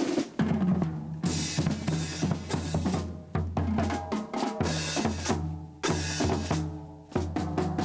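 Marching band playing as it passes: snare and bass drums beating a dense march rhythm with several cymbal crashes, over sustained low brass notes.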